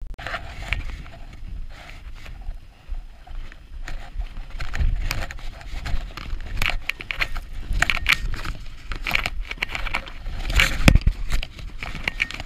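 Footsteps crunching and scraping in deep snow at an uneven pace, with occasional low thumps on the microphone of a body-worn camera.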